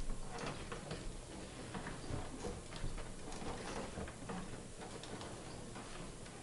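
A run of small, irregular clicks and taps, a few every second, from a patient shifting position and being handled on a chiropractic treatment table.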